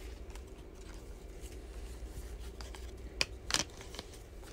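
Football trading cards handled and slid against each other by hand: faint rustling, with a sharp card click a little past three seconds in and a short flick soon after.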